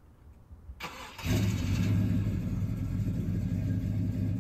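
The 1986 GMC Caballero's swapped-in 5.8-liter V8 starting: the starter cranks briefly about a second in, then the engine catches and settles into a steady idle.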